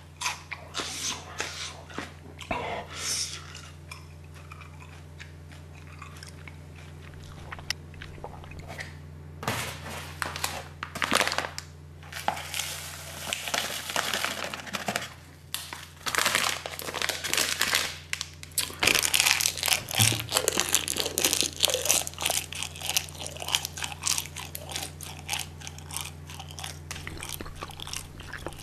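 Crinkling and crunching of a plastic spice sachet as it is squeezed out and handled, in irregular bursts that grow denser after about ten seconds, over a low steady hum.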